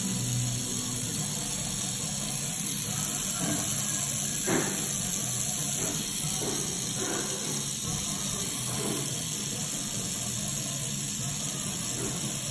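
Tattoo machine buzzing steadily while colour is put into skin, with a few short higher sounds over it, the loudest about four and a half seconds in.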